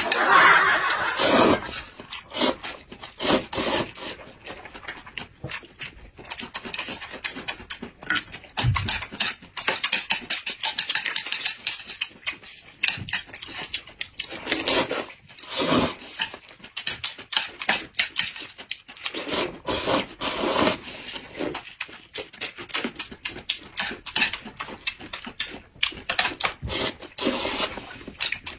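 Close-miked eating: wet chewing and slurping of noodles and soft food, many short, irregular mouth sounds.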